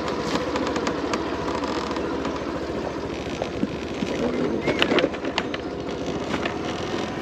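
Small motorbike engine running steadily as the bike is ridden along, with a few sharp clicks about five seconds in.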